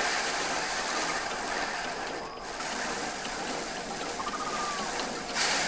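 Rice being threshed: a steady rustling hiss of stalks and grain against a thresher, with a short lull a little after two seconds in and a louder surge near the end.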